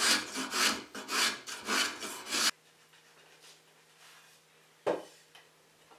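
Hand edge tool shaving the curved edge of a tulip poplar board, about five rasping strokes at roughly two per second that stop abruptly. A single wooden knock about five seconds in.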